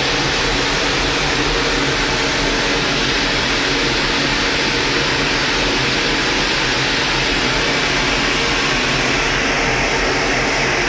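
Loud, steady machinery running: a dense, even rushing noise over a constant low hum, with no change in pace.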